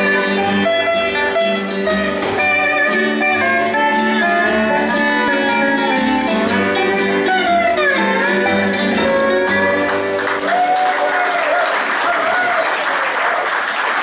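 Bluegrass band playing, led by a resonator guitar played lap style with a steel bar, including a downward slide, over acoustic guitar and upright bass. The music stops about ten seconds in and audience applause follows.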